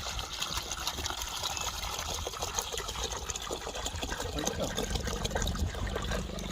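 Water pouring and splashing in a steady trickling hiss, over a low steady rumble.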